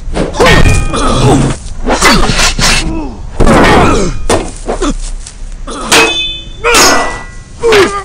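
Spear-and-shield combat: men grunting and yelling in a series of sudden cries, mixed with heavy whacks and thuds of weapons on shields, a few hits ringing briefly.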